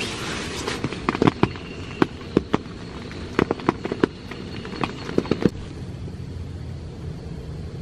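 Raindrops tapping irregularly on tent fabric, heard from inside the tent, with a brief rustle of a sleeping bag at the start. The taps stop about five and a half seconds in, leaving a steady low rumble.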